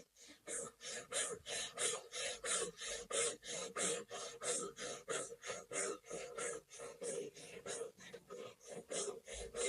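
A person breathing rapidly and forcefully in a steady rhythm, about three breath strokes a second, driven from the navel. This is a Kundalini yoga pranayama.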